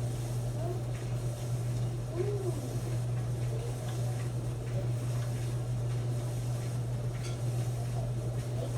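Maytag clothes dryer running with a steady low hum.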